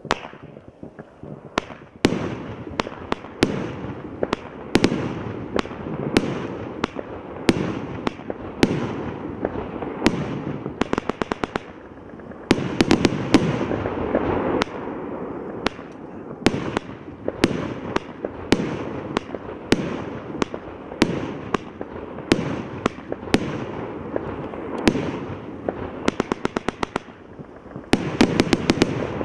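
Evolution Fireworks Avatar 72-shot compound barrage firing: a steady run of sharp shots and bursts, about one a second, over a continuous crackling haze. Several quick rattling clusters of cracks come about a third of the way in and again near the end.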